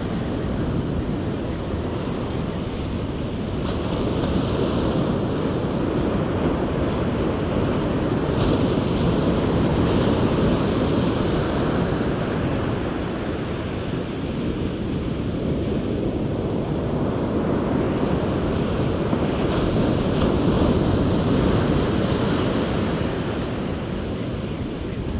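Ocean surf breaking and washing up a sandy beach, a steady rush that swells and eases slowly, with wind buffeting the microphone.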